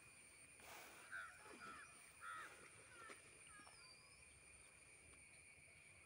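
Faint bird calls over near silence: three short arched calls about a second in, a few small chirps around three seconds, and thin high whistled glides.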